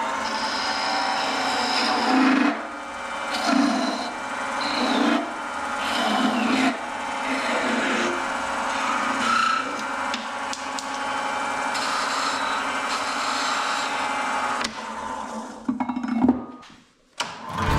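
A turning tool cutting the spinning wooden top of a bottle stopper on a wood lathe, a steady scraping hiss that swells with each pass of the tool as the top is domed over. The cutting drops out about a second before the end, with a brief noise just after.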